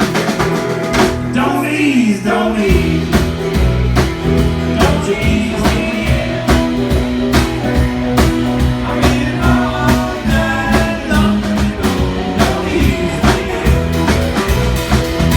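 Rock band music with a singing voice, a steady drum beat, bass and guitar.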